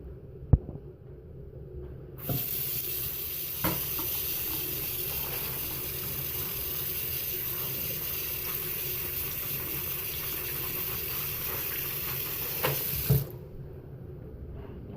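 Cold water tap running steadily into a sink, rinsing a sock full of soapy airsoft BBs. It is turned on about two seconds in and shut off a couple of seconds before the end. A sharp knock comes just before the water starts.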